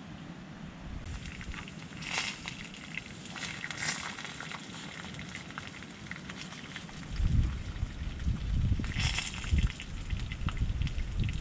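Wood-burning stove fire crackling, with a few sharper pops. From about seven seconds in, an uneven low rumbling comes in and becomes the loudest sound.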